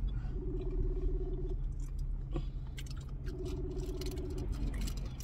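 Phone ringback tone heard through a phone's speaker: two rings about a second long, some three seconds apart, while the call goes unanswered. Underneath are a low steady hum, chewing and small crinkles and clicks from a candy wrapper.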